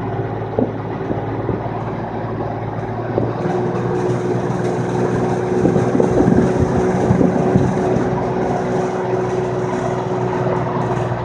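Engine and road noise of a moving vehicle heard from inside, with wind coming in. A steady hum joins about three seconds in.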